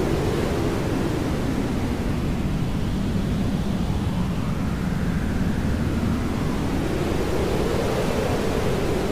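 Steady hair dryer noise: an even, deep rushing hiss with slow, faint shifts in tone.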